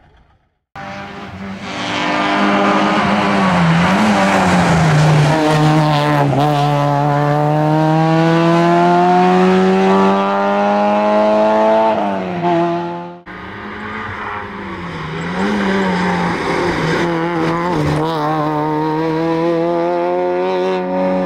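Citroen Saxo hillclimb car's four-cylinder engine at high revs under hard acceleration, its pitch climbing slowly. The pitch drops and the sound breaks off briefly about twelve to thirteen seconds in, then the engine pulls hard again.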